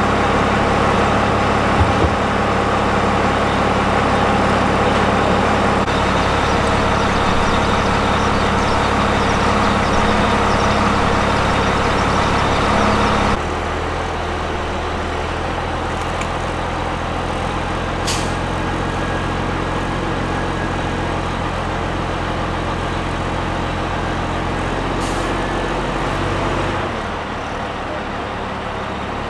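Heavy diesel engine of a rough terrain container handler running steadily under load as it lifts a helicopter hulk on slings. The engine sound drops a step in level about halfway through, and two light metallic clicks come later.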